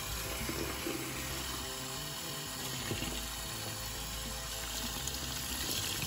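Tap water running steadily into a small rock-tumbler barrel full of soapy foam and stainless steel shot, rinsing the soap out.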